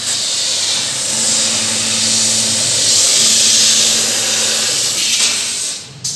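CNC laser cutting machine hissing steadily as assist gas jets from the cutting head while it cuts thin steel sheet, with a low hum coming and going underneath; the hiss drops away near the end.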